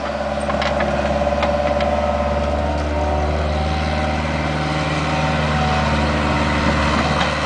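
Bobcat 430 ZHS mini excavator's diesel engine running steadily, with a few sharp knocks in the first two seconds.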